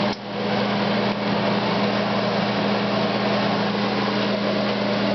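A steady mechanical hum with an even hiss, running without change.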